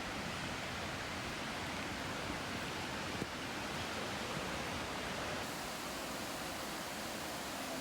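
Steady, even rushing noise, with a faint knock about three seconds in.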